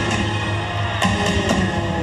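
Show music playing, with two sharp cracks half a second apart in the second half.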